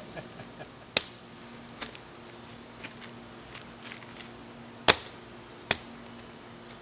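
A long stick jabbing at damaged LiPo battery packs on concrete to puncture them, making sharp knocks: a few light taps, then two loud strikes about five seconds in.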